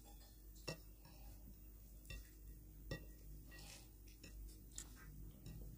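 Near silence with a few faint clicks and soft sounds of hands mixing rice and mutton curry on plates.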